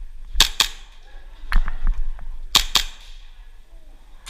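Airsoft guns firing, sharp snapping shots in quick pairs and singles, with fainter clicks between.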